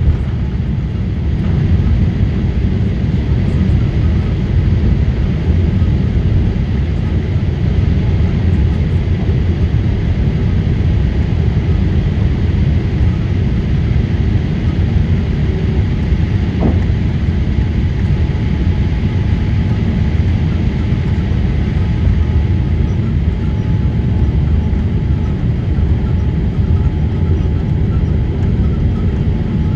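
Steady low cabin noise inside a Boeing 787-8 during the climb after takeoff: its Rolls-Royce Trent 1000 engines running at climb power, with the rush of air past the fuselage.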